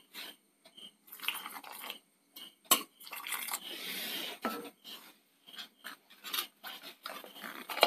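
Kitchenware clinking and knocking as a jug is handled over a steel bowl. Water pours from the jug into the bowl of spices and coconut for about a second and a half, a little after the middle. More light taps and clinks of the dishes follow.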